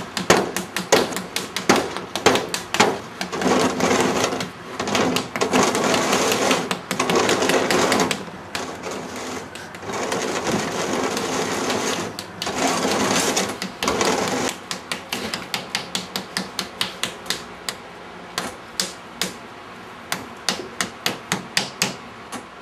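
Rapid, uneven tapping, several sharp taps a second. Two long stretches of dense rasping noise come in the first part. Later only separate taps remain, quieter.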